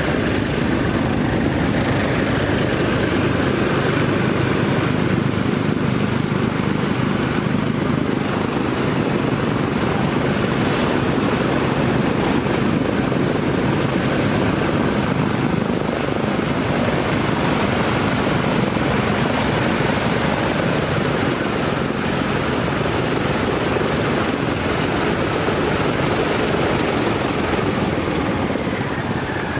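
The four Pratt & Whitney R-2800 radial piston engines of a Douglas DC-6A running steadily on the ground, propellers turning: a deep, even drone.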